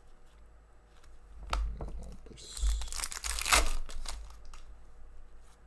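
Foil wrapper of a hockey card pack being torn and crinkled: a short crackle about a second and a half in, then a longer burst of crinkling, loudest around three and a half seconds in.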